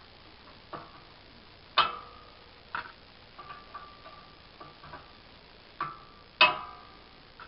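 Metal clicking and clinking as coins are worked out from between the coils of a steel kickstand spring. The spring tightens up as they come out. There is a scatter of light ticks, and two louder ringing clinks come about two seconds in and near the end.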